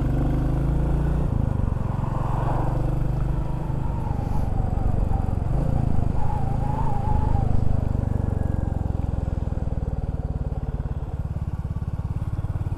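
Motorcycle engine running steadily on the road, with wind rushing past the rider's open helmet visor; the engine note shifts in pitch about a second in and again around five seconds in.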